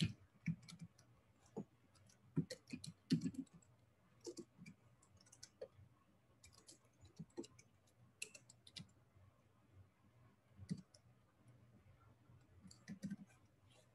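Faint, irregular clicking of computer keyboard keys as text is typed.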